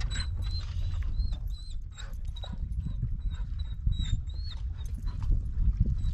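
Dog whining in short, high-pitched whines repeated over and over, with a steady low rumble underneath.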